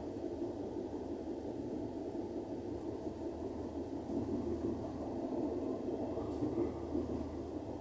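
Steady low rumble of a moving train heard from inside an Italian Media Distanza passenger coach: wheels on the rails and running noise carried through the car body.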